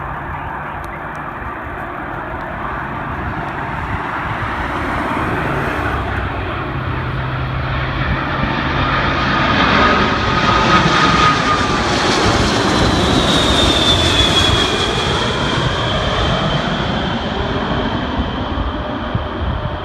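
Airliner passing close by, its engine noise building to a peak about halfway through and then fading, with a whine that drops in pitch as it goes past.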